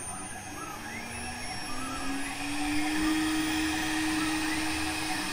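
Redsail RS6090 CNC router's spindle motor spinning up at the start of a cycle: a whine that rises in pitch over the first couple of seconds, then holds steady at running speed.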